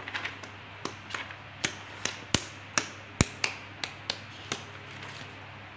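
An irregular series of sharp taps, about a dozen over some four seconds, the loudest in the middle, stopping about a second before the end.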